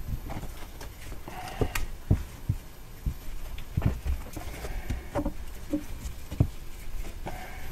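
Exhaust heat wrap being wound tightly around an exhaust pipe held in a vise: the coarse wrap rubbing and scraping over the pipe, with irregular knocks and thumps from the handling.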